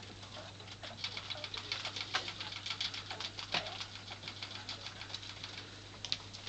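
Pet rats fishing peas out of a glass bowl of water and eating them: a patter of quick small clicks and crunches, densest in the first half.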